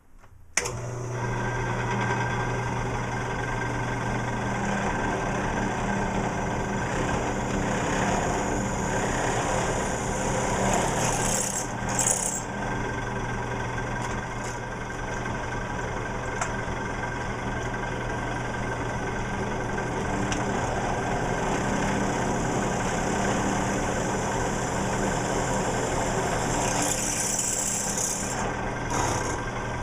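A 1964-vintage electric drill running steadily while boring holes in aluminum angle pieces, a constant motor hum starting about half a second in, with short bursts of higher-pitched hiss twice as the bit cuts.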